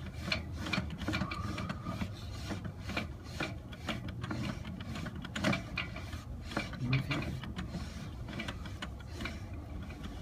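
Sewer inspection camera's push cable being pulled back out of the drain pipe: steady rubbing and scraping with many irregular clicks.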